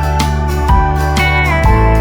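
Background music: guitar-led instrumental with a bass line and a steady beat.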